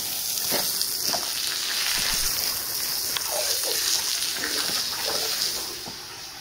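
Water spraying from a hose-fed scrub brush and splashing on a wet, soapy rug, with the stiff bristles scrubbing the pile in uneven strokes. The spray's hiss drops away near the end.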